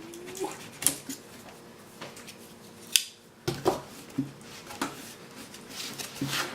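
Plastic packaging and figure parts being handled: scattered sharp clicks and taps, the loudest about three seconds in, with a short rustle near the end.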